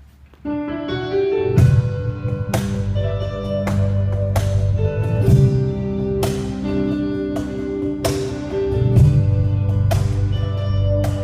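Live band playing a slow song that starts about half a second in: held keyboard-like notes over a bass line, with a sharp percussion hit about once a second.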